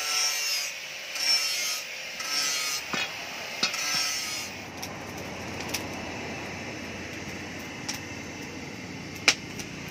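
Rasping metal scrapes, about one stroke a second, with a faint squeak in them, for the first few seconds. Then a steady hiss with a few light clicks and one sharper click near the end.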